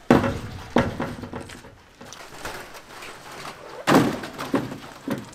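A series of heavy knocks and thuds, about five, from hands-on building work. There are two in the first second, then three close together near the end, the first of these the loudest.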